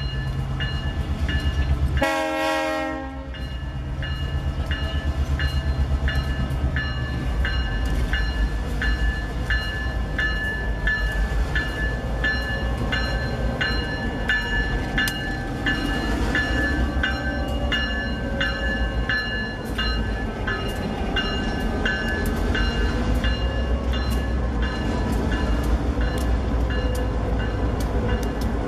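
Diesel freight locomotives passing close by, with a short horn blast about two seconds in. After the horn comes a heavy engine rumble, with even clicks and a ringing tone about twice a second.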